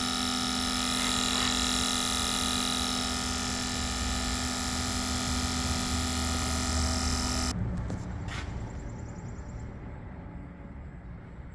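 Autool CT400 fuel injector tester running a high-speed injection test: the injectors pulse rapidly alongside the pump in a loud, steady buzz. The buzz cuts off suddenly about seven and a half seconds in as the test count finishes. A single click follows, then a low hum fading away.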